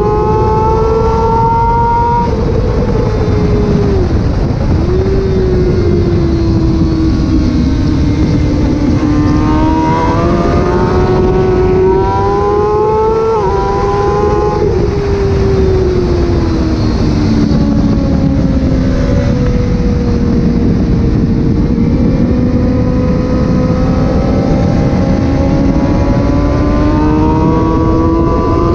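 Kawasaki ZX636's freshly rebuilt inline-four engine being ridden hard on track. Its pitch climbs steadily under acceleration, steps at gear changes and falls back when slowing, over a steady rushing noise.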